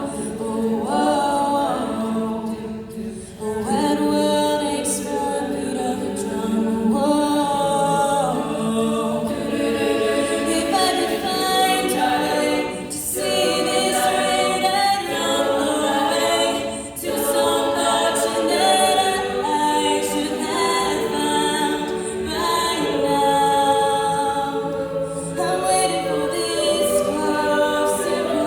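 A cappella group singing a pop song: several voices in harmony, holding and shifting chords without instruments.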